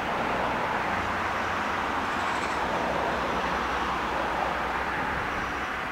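Steady wash of distant road traffic, with a couple of faint high bird chirps.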